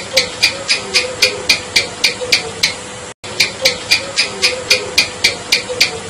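House gecko (cicak) chirping: a rapid run of sharp, even chik-chik clicks, about three a second, broken by a brief gap about halfway through.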